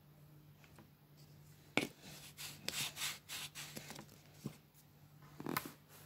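Hands working kinetic sand in a plastic cup mould with a plastic tool: a sharp click about two seconds in, then a run of scraping and rubbing, another click, and a louder scrape near the end.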